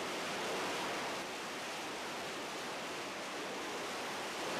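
Steady rushing noise, even throughout, with no distinct tones or knocks.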